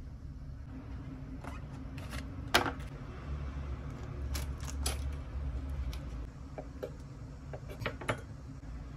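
A few sharp clicks and knocks of a kitchen knife on a wooden cutting board and a foil cheese wrapper as brie is cut, the loudest about two and a half seconds in, over a low steady hum.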